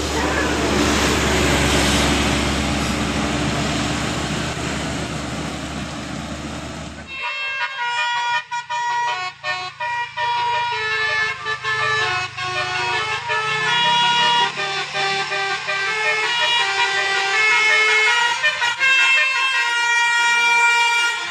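A loud rushing noise with a low hum, cut off abruptly about seven seconds in. Then a Basuri telolet bus horn plays a tune of held, changing notes.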